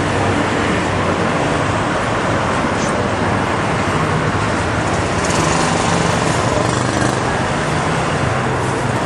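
Steady road traffic noise: a continuous rush of passing vehicles with a low engine hum underneath.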